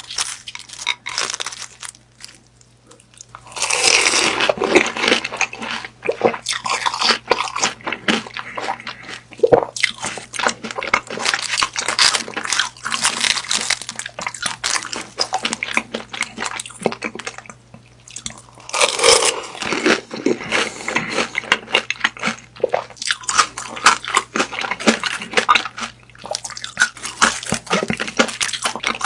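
A person biting into and chewing grilled beef sausages. There is a loud bite about four seconds in and another near twenty seconds, each followed by a long stretch of chewing.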